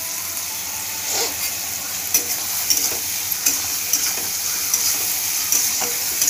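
Potato sticks and eggplant pieces sizzling in hot oil in a metal wok while being stirred, the spatula scraping and tapping against the pan every second or so.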